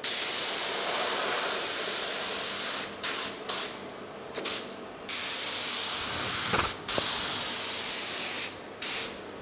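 Small gravity-feed spray gun hissing with compressed air as it sprays solid black base coat. The pattern is one long trigger pull of about three seconds, a few short bursts, another long pull of about three seconds, then one more short burst near the end.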